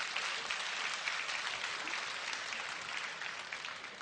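Arena crowd applauding, loudest at the start and slowly dying away, as a fighter lies down on the canvas after the bout is stopped.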